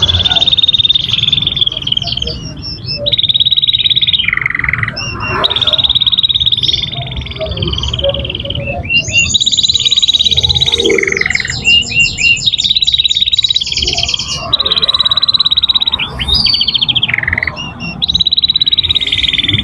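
Canary singing: long rolling trills and rapid chattering phrases, one after another with only brief pauses. This is the 'gacor ngerek' song of a bird in full, long-running song.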